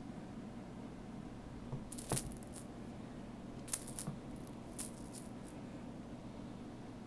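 A dangled cat toy jingling and rattling in a few short, sharp bursts as kittens bat at it: a cluster about two seconds in, then several more between about three and a half and five and a half seconds in.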